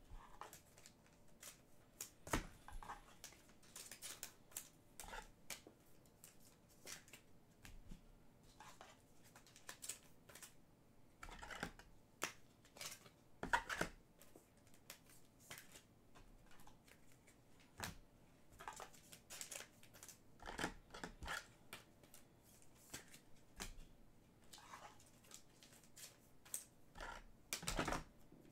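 Panini Prizm soccer trading cards being handled and flipped through: faint, scattered clicks and rustles, with a few sharper snaps.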